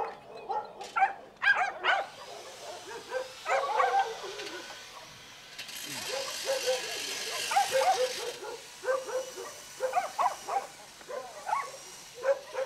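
Several dogs barking over and over. A power drill runs for about three seconds near the middle.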